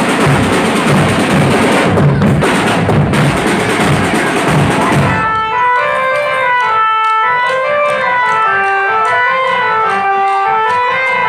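Drum band playing: drums and cymbals at full force, then about five seconds in the drumming drops away and a melody of held, organ-like notes takes over, with light ticking percussion keeping time.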